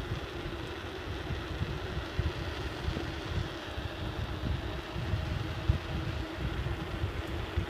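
Wind buffeting the microphone during a bicycle ride, uneven gusts low down over a steady rushing noise.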